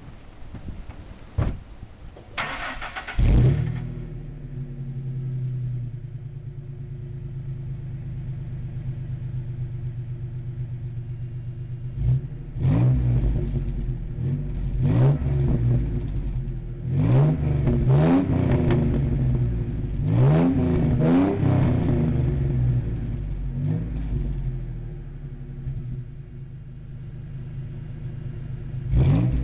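V6 car engine exhausting through a Flowmaster 10 Series single-chamber muffler: cranked and caught about three seconds in, then idling steadily. From about halfway it is revved again and again, each rev climbing and dropping back toward idle, with one more rev near the end.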